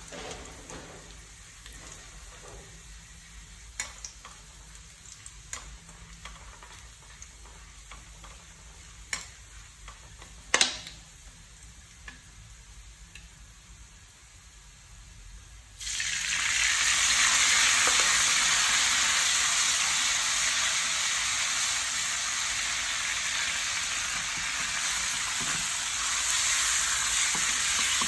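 Minced garlic frying softly in a pan, with a few sharp clinks and scrapes of a metal spatula against the pan, the loudest about ten seconds in. About sixteen seconds in, a much louder, steady sizzle starts suddenly as something new goes into the hot pan.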